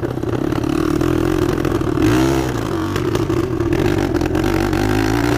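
Harley-Davidson Sportster's V-twin engine running under way. About two seconds in the revs rise and fall once, then the engine pulls steadily.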